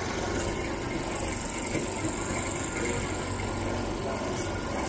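Motorised sugarcane juice crusher running with a steady mechanical drone while its large wheel spins and juice flows from the rollers.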